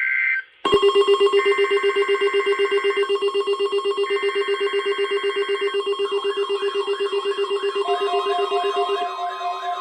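Weather radio receivers' alert alarms going off together, a rapid pulsing beep, set off by the SAME digital header of a weather radio Required Weekly Test. Two more bursts of the header's two-tone data screech cut through it in the first half, and a warbling alarm joins about six seconds in.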